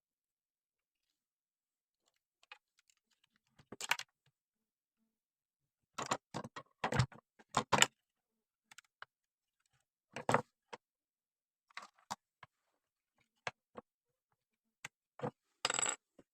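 Irregular clicks, knocks and metallic clatter, like small parts or tools being handled and set down on a workbench. A loose cluster of sharp knocks comes near the middle, and a short rattle comes near the end.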